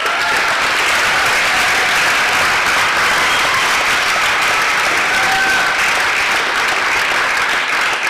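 Audience applauding steadily, a dense clapping from a full hall.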